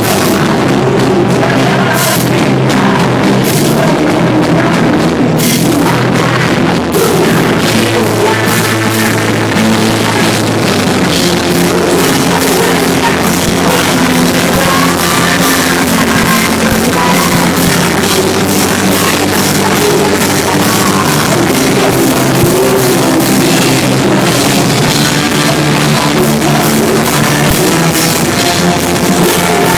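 Rock band playing live: a drum kit under pitched instruments, loud and even.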